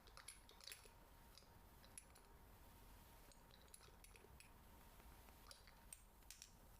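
Faint, scattered clicks close to the microphone over a low hiss, with a few small clusters of clicks near the middle and end.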